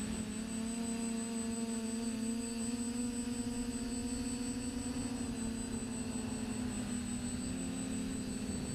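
TBS Discovery quadcopter's electric motors and 9.5-inch Graupner propellers whining at a steady pitch, heard from the GoPro mounted on the frame. The pitch wavers slightly, and a thin steady high tone sits over it.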